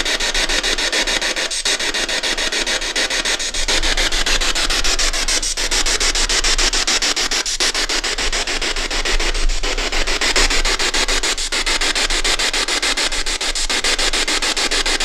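Ghost box (spirit box) sweeping through radio frequencies: a steady, loud hiss of static chopped into rapid stutters, with a brief dropout about every two seconds.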